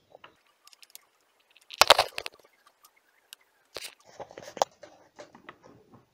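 Handling noise as a USB charging cable is plugged into a smartphone and a small plastic inline USB voltmeter-ammeter is picked up: scattered clicks and rustles, with the loudest knock about two seconds in and another sharp click near the middle.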